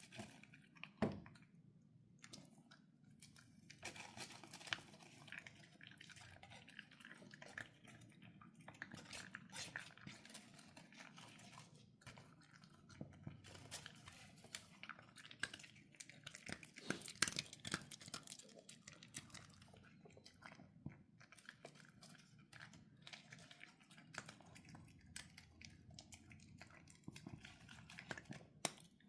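A pet crunching and chewing dry kibble, with many irregular crisp crunches and a louder one about a second in.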